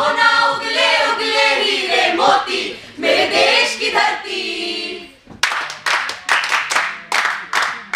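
A group of voices singing together in unison, followed about five seconds in by steady rhythmic hand clapping, roughly three claps a second.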